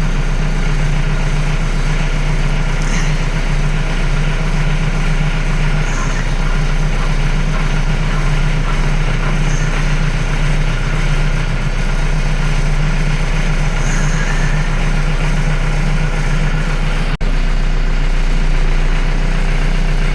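Yanmar YT-series tractor's diesel engine idling steadily, with no rattle heard from the steering column, which has just been greased. The sound drops out for an instant near the end.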